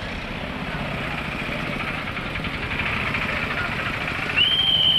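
Street traffic: a small three-wheeler engine running close by amid general road noise. Near the end comes a shrill, steady high tone lasting about a second.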